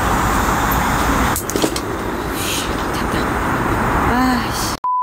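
SOTO regulator butane stove being lit: a couple of sharp igniter clicks, then the steady hiss of the gas burner over a constant wash of road traffic noise. It cuts off suddenly near the end into a short steady beep tone.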